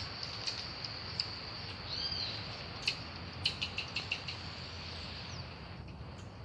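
Marmosets giving short, high chirps, one rising-and-falling call about two seconds in and a quick cluster about three to four seconds in, over a steady high insect drone.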